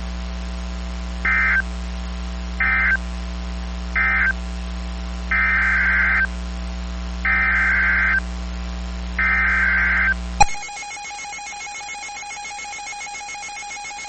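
Emergency Alert System SAME digital data bursts: three short end-of-message bursts, then three longer header bursts about a second each, all harsh screechy chirps a second apart. About ten seconds in, after a click, the steady two-tone EAS attention signal starts.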